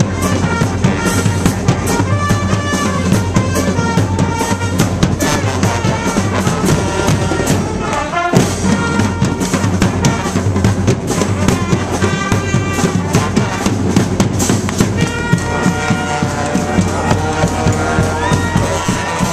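Brass band playing live: horns including trumpet, trombone, baritone saxophone and sousaphone over a driving beat of bass drum and snare drums. The horns dip briefly with a falling slide about eight seconds in, and rise in upward smears near the end.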